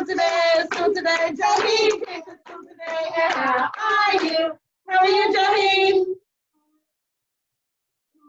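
High voices singing with hands clapping along. The sound cuts off suddenly about six seconds in.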